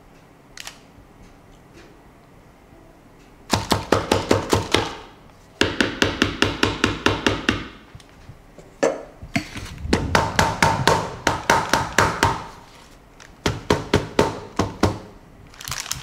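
Metal loaf pan knocked rapidly and repeatedly against a wooden cutting board to settle and level the cake batter: four runs of quick knocks, about eight a second, each lasting one to two seconds, starting a few seconds in.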